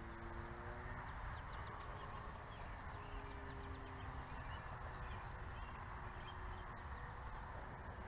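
Electric RC plane's motor and propeller humming in the distance: a faint steady drone of a few tones that slides slightly lower in the first second, then holds. Small birds chirp throughout over a steady background hiss.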